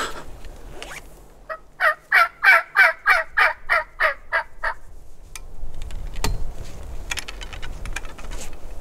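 Turkey calling: a run of about eleven quick, evenly spaced notes over some three seconds. A single sharp knock follows about six seconds in.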